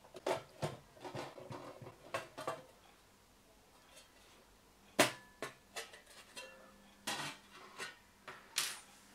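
Aluminium top cover of a Blaupunkt GTA 450 car amplifier being lifted off and handled on a wooden table: a series of light metal clicks and knocks, the sharpest and loudest about five seconds in.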